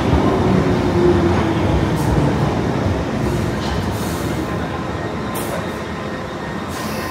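London Underground tube train running on the rails, a steady rumble that slowly grows quieter.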